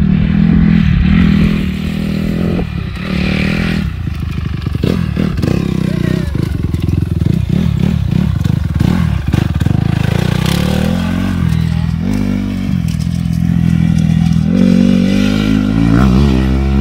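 Honda CRF250R motocross bike's single-cylinder four-stroke engine being ridden hard, revving up and falling back again and again as the rider opens and closes the throttle.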